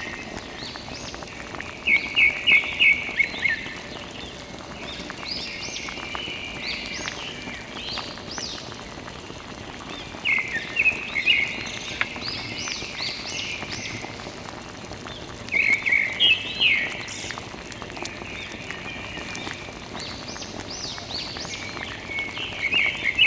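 A steady trickle of water runs from a thin plastic tube onto wet dirt. Over it come four bursts of rapid high chirping calls, about six seconds apart; these are the loudest sound, and the last one falls near the end.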